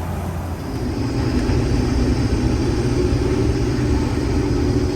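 Case IH 2388 combine running steadily while harvesting wheat: a low, steady drone that grows a little louder about a second in, with a steady higher hum joining it.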